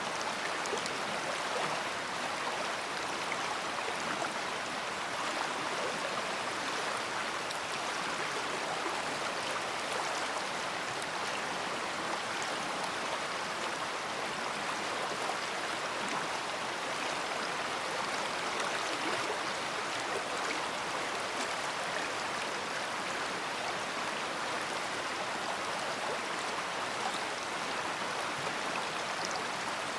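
A big river flowing: a steady rush of moving water with fine splashing, unchanging throughout.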